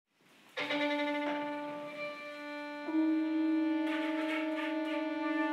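Flute, violin and bass trombone playing held notes in a contemporary classical trio piece. They enter together about half a second in, then shift to a louder held chord about three seconds in.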